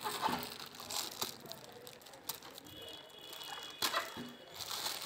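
Clear plastic packaging bags rustling and crinkling as they are handled, with a few sharp clicks in between, the sharpest a little before the end.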